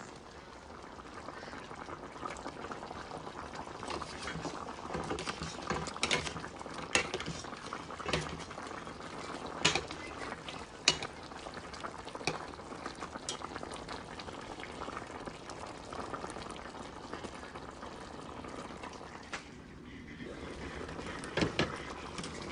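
Chicken kaldereta stew bubbling at a simmer in a stainless steel pot, with scattered sharp clinks of a ladle against the pot as it is stirred.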